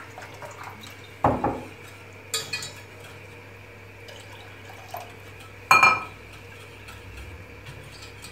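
Whisk and utensils clinking against a stainless-steel saucepan of soup: a few separate knocks and clinks, the loudest a ringing metallic clink a little before six seconds in, over a low steady hum.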